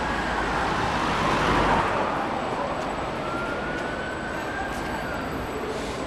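City street traffic noise: vehicles running past on the road, one swelling louder about a second and a half in. A faint tone glides slowly up and down twice.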